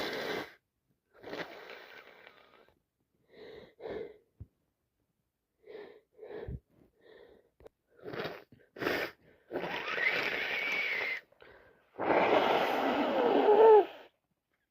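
A person's short, wheezy gasping breaths in a string, building to a long, loud sneeze near the end, which cuts off sharply. It is sneezing from allergies.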